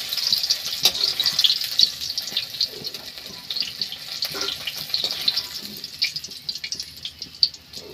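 Raw banana pieces frying in hot oil in a kadhai: a crackling sizzle that fades as the pieces are lifted out with a metal slotted spoon. A few clicks of the spoon against the pan.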